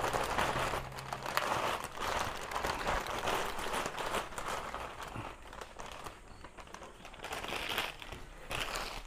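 Plastic packet of vermicelli (sotanghon) crinkling and crackling irregularly as it is handled, busier in the first few seconds and thinning out toward the end.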